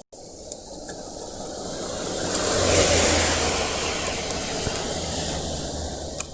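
A car passing on the wet road: the hiss of its tyres on the water and a low engine hum swell to a peak about three seconds in, then fade away.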